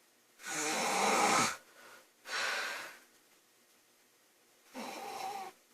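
A woman snoring in her sleep: three noisy breaths, the loudest and longest with a low rasp about half a second in, a shorter one around two and a half seconds, and another snore near the end.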